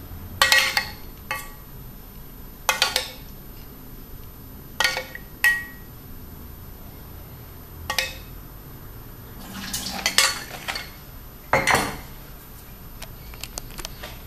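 Metal spoon clinking against a stainless steel saucepan as a cream sauce is spooned out: about eight sharp, irregularly spaced clinks, each ringing briefly.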